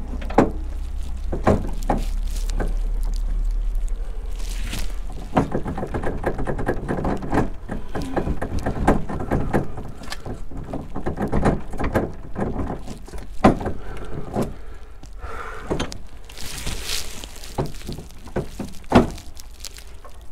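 Honda Deauville 650 drive shaft being twisted and pushed by hand against its splines, giving many irregular metallic clunks and knocks as it fails to engage.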